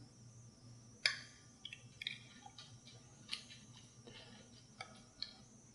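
Metal spoon clicking lightly against a glass measuring cup and bowl while spooning thawed tart cherries out of their juice: a dozen or so scattered clicks, the loudest about a second in.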